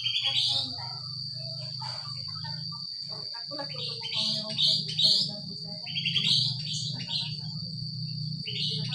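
Pet sooty-headed bulbul (kutilang) singing in short, bright, bubbling phrases, about four bursts: at the start, around four to five seconds in, around six seconds in, and near the end. A steady high whine and a low steady hum run underneath.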